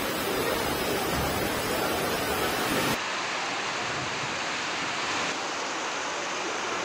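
Steady rushing of floodwater. About three seconds in, the sound changes abruptly and turns duller.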